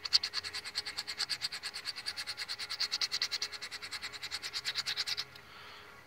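Fast rhythmic rubbing of an abrasive pad back and forth across the cast-iron deck surface of a Chevy 3.1 V6 engine block, at about nine strokes a second, scouring oil carbon off to bright bare metal. It stops about five seconds in.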